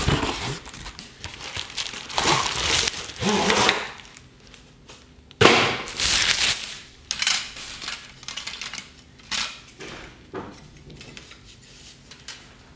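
Unpacking a cardboard box: plastic wrapping crinkling and cardboard rustling in irregular bursts as a plastic-wrapped light stand is lifted out, with a sharp knock about five seconds in and lighter clicks and taps.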